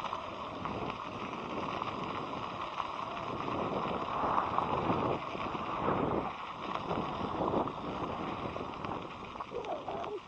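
Wind rushing over a helmet-mounted action camera's microphone, with tyre and road noise from a moving electric scooter, swelling louder a few seconds in. A brief wavering tone near the end.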